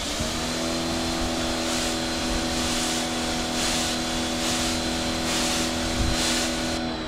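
Electric pressure washer running with the gun triggered: the pump motor hums steadily while the high-pressure jet hisses from the nozzle. Near the end the trigger is released, the spray cuts off and the motor begins to wind down.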